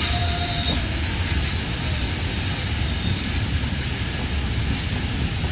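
Steady running noise of a passenger train heard from its open doorway: a low rumble with wheel and track noise, and wind buffeting the microphone.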